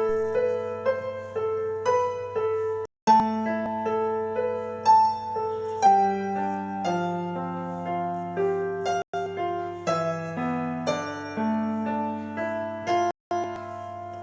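Slow keyboard music, electric-piano style, playing an instrumental introduction. The sound cuts out completely for a moment three times.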